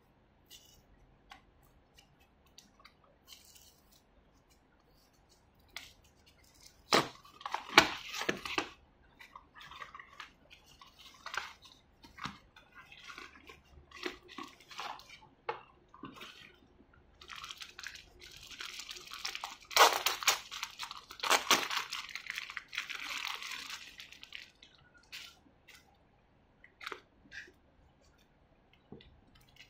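Hands handling a small cardboard box and the plastic packaging inside it: scattered light clicks and taps, a few sharp snaps about seven to eight seconds in, and a longer crackling rustle of packaging in the middle.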